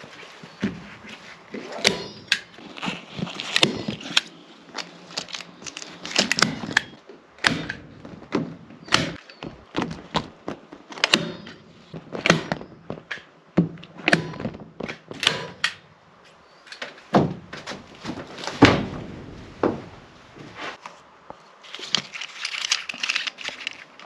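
Irregular knocks and thunks of wooden pieces being handled and set down during work on a log hut, with a stretch of rustling near the end.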